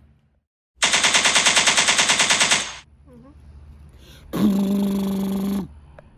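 Sound effects made with the mouth: a rapid rattling burst of about ten pulses a second for about two seconds, like machine-gun fire, then about a second and a half later a shorter buzzing hum on a steady low tone.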